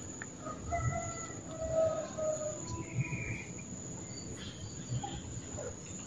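Steady high-pitched insect drone, cricket- or cicada-like, with a few faint, soft bird notes about a second in.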